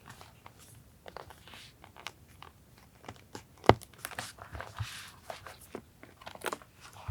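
Paper and journaling materials being handled: scattered small rustles, crinkles and taps, with one sharp tap about halfway through.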